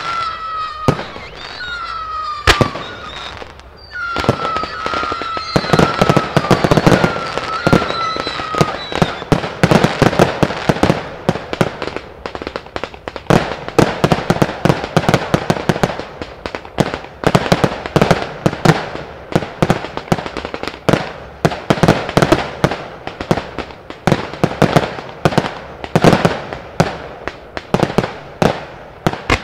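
Fireworks display: aerial shells and cakes bursting in rapid reports, several a second from about five seconds in, with crackle and echo after the bangs. In the first seconds, over sparser bangs, a short high whistling tone repeats, falling slightly in pitch each time.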